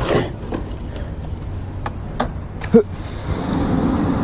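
Kayak being paddled on a river: water noise with a few light knocks, and a steadier rush of water growing louder about three seconds in.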